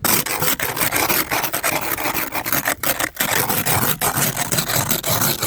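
Ice scraper rasping hard across a car's iced-over surface in rapid, continuous strokes with a few brief breaks: loud scraping of snow that has turned to ice.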